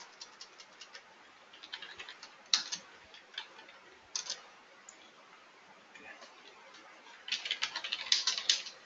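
Computer keyboard typing: scattered single key presses, then a quick run of keystrokes near the end.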